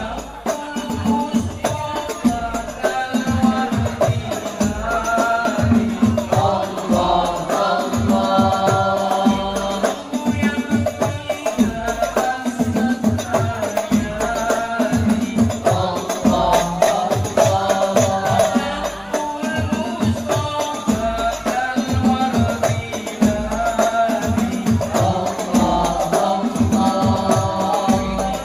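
Al Banjari ensemble performing: male voices singing an Islamic devotional song (sholawat) together over a steady, interlocking beat of hand-struck terbang frame drums.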